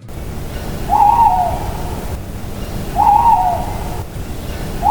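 Owl hooting: two short wavering hoots about two seconds apart, with a third starting right at the end, over a steady rushing background hiss.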